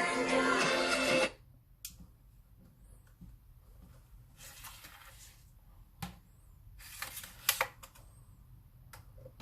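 Music with singing that cuts off abruptly about a second in, then scattered sharp clicks and a brief rustle of handling.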